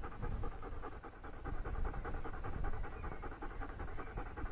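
German Shepherd Dog panting in a quick, even rhythm.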